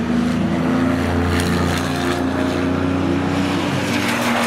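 Porsche 997 GT2 RS's twin-turbocharged 3.6-litre flat-six with an aftermarket Techart exhaust, driving past at speed and holding a fairly steady engine note, with a few short rasping bursts over it.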